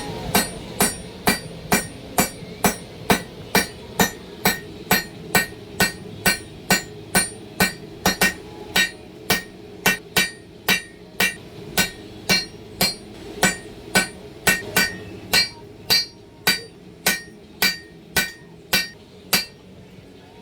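A forging hammer strikes hot Damascus steel on an anvil in a steady rhythm of about two blows a second, each blow ringing. The blows stop shortly before the end.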